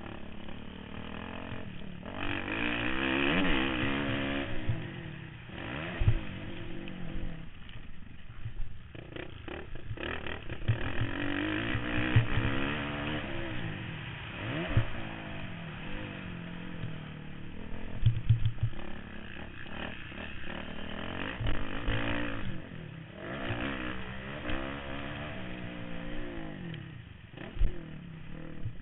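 Motocross bike engine revving hard and easing off again and again as the rider accelerates down straights and backs off for corners, heard close from the rider's helmet, with occasional short low thumps.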